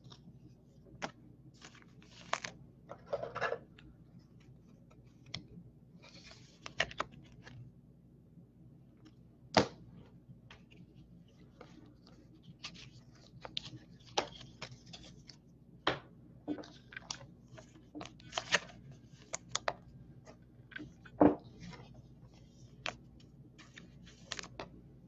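Baseball trading cards being handled and flipped through one by one: scattered light clicks and slides of card stock, with a couple of sharper taps about ten and twenty-one seconds in.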